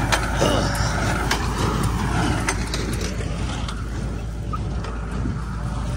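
Tractor engine running steadily while a New Holland small square baler works the straw, its mechanism clanking with sharp clicks and knocks, mostly in the first half.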